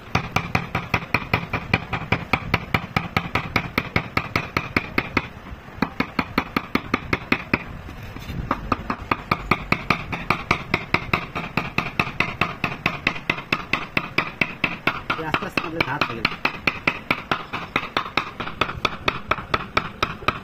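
A curved carving blade chopping into a wooden board in quick, regular knocks, about four a second, cutting along a marked line. The knocking eases off for a few seconds about five seconds in, then picks up again.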